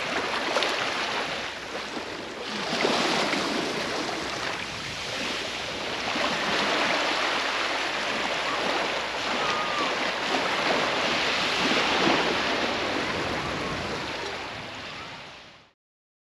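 Small waves breaking and washing up onto a sandy beach, the hiss of the surf swelling and easing every few seconds. The sound fades out near the end.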